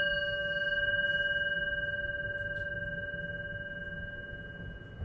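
Small handheld singing bowl ringing out after being struck: a clear steady tone with several higher overtones, slowly fading away.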